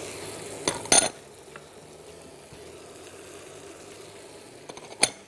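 A glass bowl clinking against a frying pan as diced bell peppers are tipped in: two sharp clinks about a second in and another near the end, over a quiet sizzle of orzo sautéing in ghee and oil.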